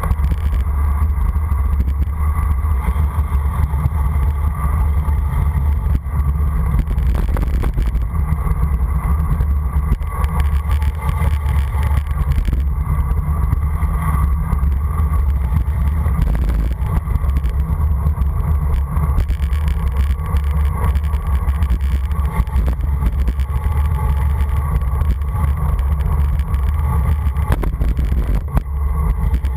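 Steady low rumble of wind buffeting the microphone of a bicycle-mounted camera, mixed with tyres rolling on asphalt, during a fast downhill ride.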